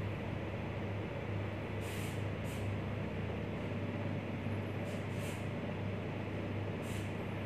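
Steady low hum with hiss, the background noise of the recording setup, broken by a few brief soft high hisses.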